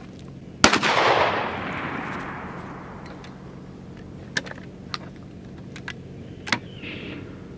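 A single 12-gauge slug shot from a Henry single-shot break-action shotgun, about half a second in, its report echoing away over about two seconds. A few sharp clicks follow in the second half.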